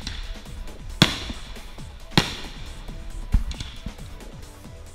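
Aerial fireworks shells bursting: three sharp booms about a second apart, the third the deepest, followed by crackling.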